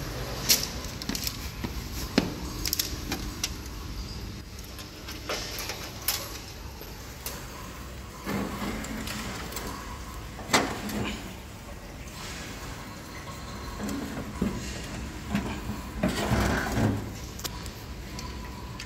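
Scattered clicks, knocks and scuffs of hands working on the plastic and metal parts of a Konica Minolta Bizhub 368e copier as it is taken apart, with a few longer bouts of rattling and scraping in the middle and near the end.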